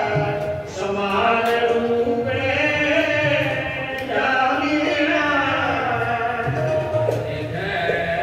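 Sikh devotional hymn singing (kirtan): a voice holding long notes that bend slowly up and down, with sustained musical accompaniment.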